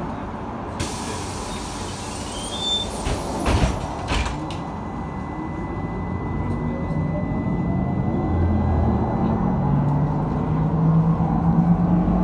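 LAZ-E301 trolleybus doors closing: a sharp hiss of air about a second in, then two knocks as the door leaves shut. The trolleybus then pulls away, its electric traction drive whining steadily higher in pitch as it speeds up.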